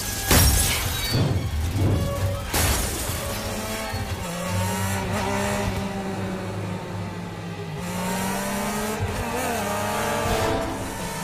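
A soundtrack mix of music and motorcycle engines revving, rising and falling in pitch. Three loud crashes come in the first three seconds.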